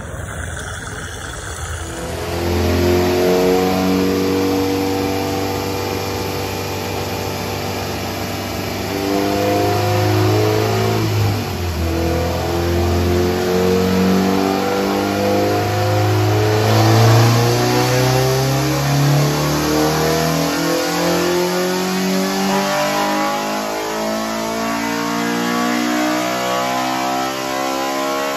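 Honda B18B1 four-cylinder engine with a B16 VTEC head, in a 1992 Civic, running under load on a chassis dyno with the front wheels driving the roller. From about two seconds in it revs hard, its pitch climbing slowly through a long pull, with a brief drop about twelve seconds in.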